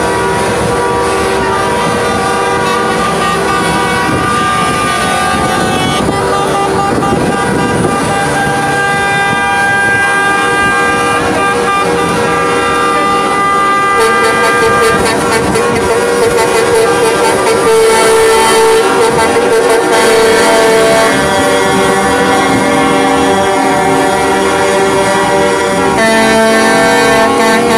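Many truck air horns and car horns honking at once: loud, long, overlapping blasts that keep sounding, some stopping and others starting every few seconds.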